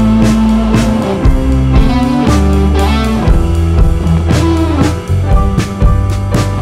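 A band playing an instrumental passage without singing: guitars over held low notes, with regular drum hits.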